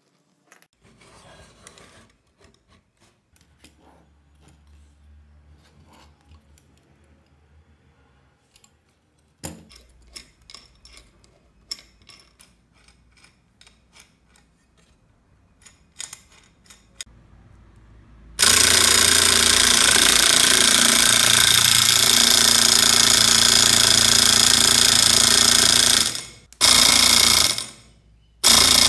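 Faint clicks and taps of small parts and hand tools, then about 18 seconds in a 775 12 V DC motor starts with a loud, steady whir, belt-driving the crank of a homemade scroll saw. It stops about 8 seconds later, then runs twice more in short bursts near the end.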